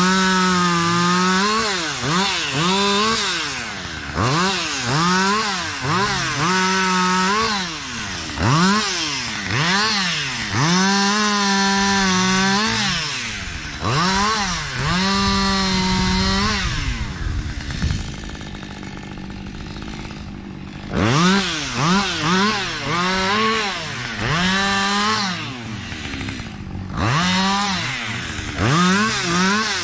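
Chainsaw limbing a felled birch: the engine revs up to full throttle and drops back again and again as each branch is cut. It settles to a few seconds of idle just past the middle.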